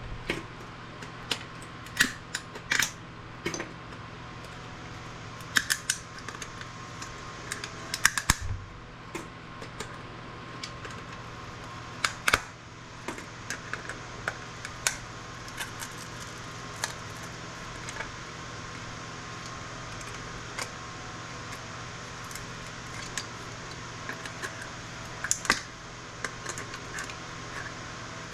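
Irregular sharp clicks and snaps of metal hand tools working steel shielding and components off a circuit board, with small pieces clattering down, over a steady background hum.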